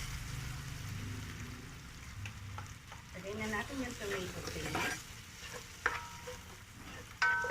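Sautéed aromatics and freshly added tomato paste sizzling in a pan as they are stirred, with two sharp metallic clinks near the end.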